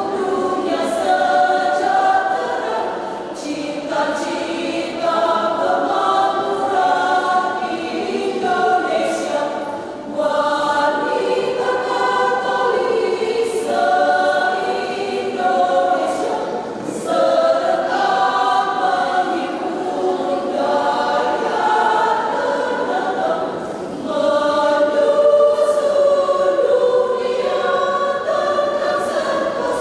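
Women's choir singing.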